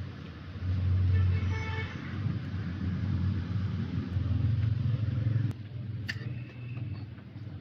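Low rumble of motor vehicles that rises and falls, with a brief pitched tone about a second and a half in and a sharp click near six seconds.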